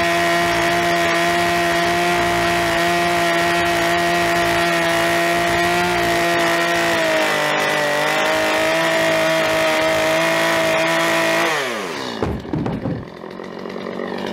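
Two-stroke Stihl chainsaw running at full throttle, cutting through a hewn log wall; its pitch sags slightly about halfway through as the cut loads it. Near the end the throttle is released and the engine winds down to idle.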